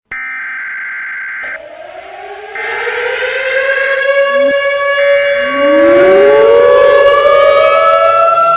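Civil defense sirens winding up. First a steady tone sounds for about a second and a half, then several sirens start one after another, each rising in pitch and overlapping as the sound grows louder.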